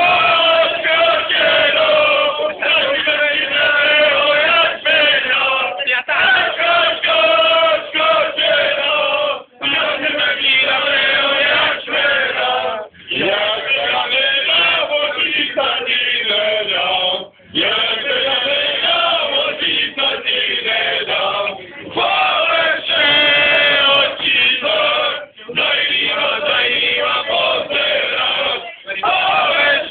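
A group of young men singing and chanting loudly together, with short breaks between phrases.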